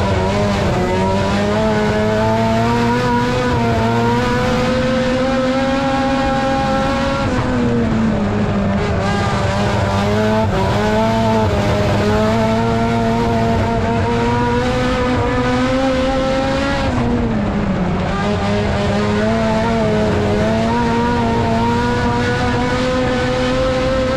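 Race car engine at speed on a dirt oval, heard from inside the car. Its pitch climbs steadily, then dips briefly twice, about seven and seventeen seconds in, as the driver lifts for the turns, and climbs again each time.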